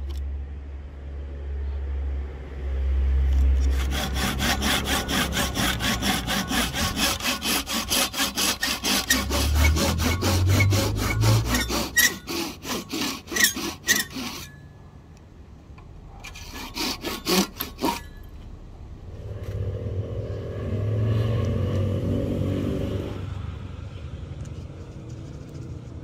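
Fine-toothed hand saw cutting a kerf into the end of a rosewood axe handle for a cross wedge: quick, even back-and-forth strokes for about ten seconds, then a short second bout. Near the end a low rumble rises and fades.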